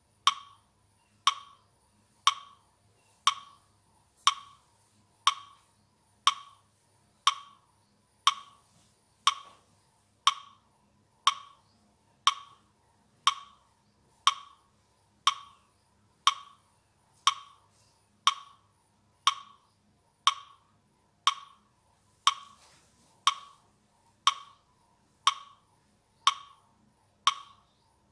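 Metronome ticking steadily at one sharp click a second, about 28 ticks, setting the count for slow deep breaths in and out.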